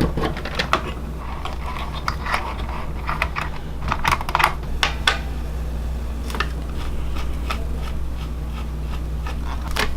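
Irregular small plastic clicks and taps from handling the keys and key assembly of an opened Korg PS800 keyboard, with a cluster of louder clicks about four to five seconds in, over a steady low hum.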